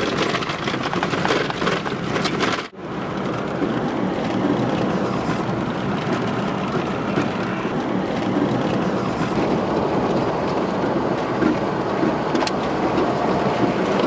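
Steady engine and road noise heard from inside a moving car, with a brief break about three seconds in where the recording cuts.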